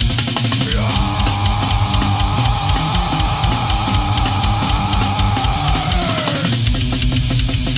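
Death-crust metal played at full volume: fast, dense drumming under distorted guitar and bass. About a second in, a long held high note slides up into place, sustains, and drops away about six and a half seconds in.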